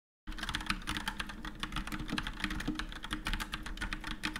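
Fast typing on a computer keyboard: a rapid, uneven run of key clicks that starts abruptly a moment in.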